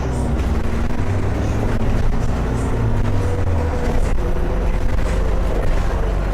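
ADL Enviro400 double-decker bus's diesel engine running under way, its note shifting about four seconds in.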